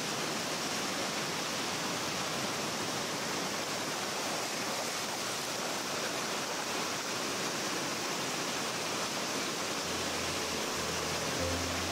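Ocean surf: a steady, even wash of waves breaking. Low music notes begin to come in near the end.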